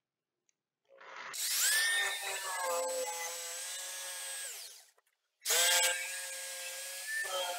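Corded jigsaw cutting through marine-grade plywood in two runs, about four seconds and then about three, with a short stop between; each run opens with the motor's whine rising as it spins up.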